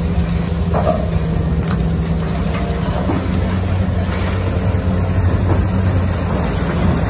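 Heavy mining diesel engines running with a steady low drone as a Komatsu PC2000 hydraulic excavator works, loading a haul truck.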